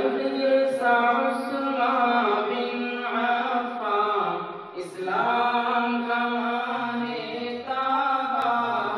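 A solo voice chanting slowly in long, held, sliding notes, with a short break about four to five seconds in.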